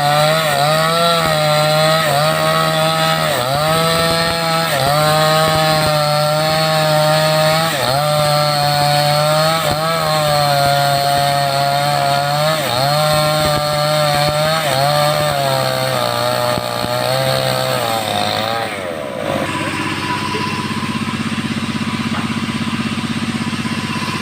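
A 5800-type chainsaw running at full throttle while ripping a teak log lengthwise. Its high engine note dips again and again as the chain bites into the wood. About nineteen seconds in it drops to a steady idle.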